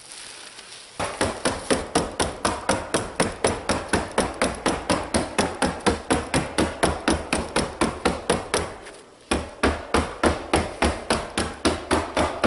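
Rapid, steady hammering on a plywood roof, about five blows a second, fastening ice-and-water shield membrane down; it stops for under a second near the end, then starts again.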